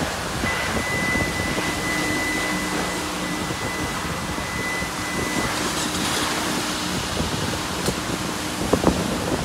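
Steady rushing ambience of a self-service car wash bay with a low machine hum, and a faint high whine for the first five seconds or so. A couple of short clicks come near the end.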